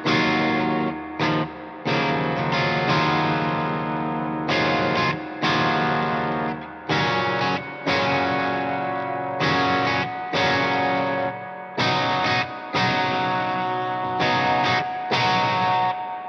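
Electric guitar fitted with Bethnal Green pickups, played through an Eventide H90 effects patch with distortion. Chords are struck and left to ring in short phrases, with brief breaks between them.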